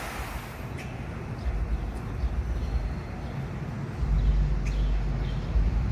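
Outdoor waterfall ambience: a steady rush of falling water, with low rumbling gusts of wind on the microphone and two brief high chirps, about a second in and near the end.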